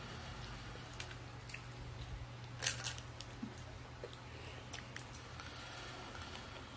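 Faint, scattered crunches and clicks of someone chewing crispy fried chicken, the loudest about two and a half seconds in, over a steady low hum.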